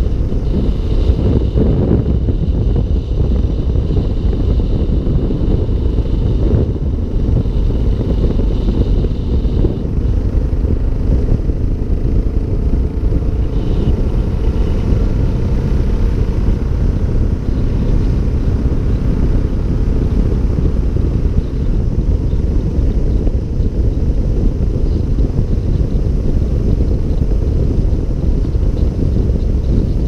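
Heavy wind buffeting on the microphone of a camera mounted on a moving Suzuki DR650 dual-sport motorcycle, with the bike's single-cylinder engine running underneath. The noise is steady throughout.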